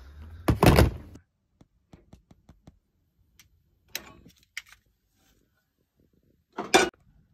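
Camp-kitchen handling sounds: a loud thunk about half a second in, a scatter of small clicks and knocks, then a louder metal clank near the end as a frying pan is set down on the camp stove's wire grate.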